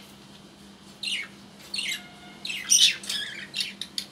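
Pet budgerigars giving short, harsh squawks, several in a row, loudest nearly three seconds in.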